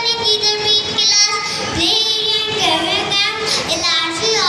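A young child singing or chanting into a microphone, the high voice amplified over a hall's sound system.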